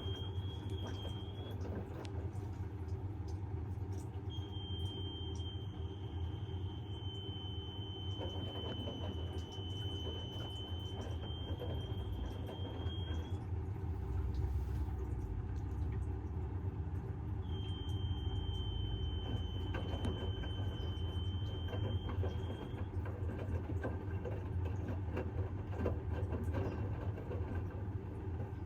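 Bosch washing machine running with a steady low hum and light knocking, over which a thin high-pitched squeal comes and goes three times: briefly at the start, for about nine seconds from about four seconds in, and for about five seconds from about seventeen seconds in.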